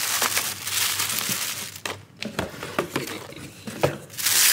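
Tissue paper crinkling and rustling as hands unfold it. It comes in stretches, with a brief lull about halfway through and a few light clicks, and the loudest rustle comes near the end.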